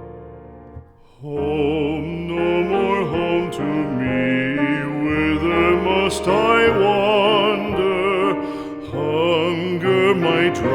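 Background music: a classical art song, a solo singer with strong vibrato over piano accompaniment. The last notes of a piano phrase fade, and the voice comes in about a second and a half in.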